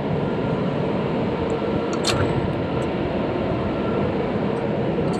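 Steady rumbling background noise of a large store showroom, with one short click about two seconds in.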